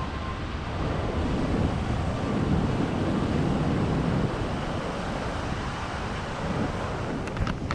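Ocean surf washing on the beach, with wind buffeting the microphone in low rumbling swells. A few sharp clicks come in near the end.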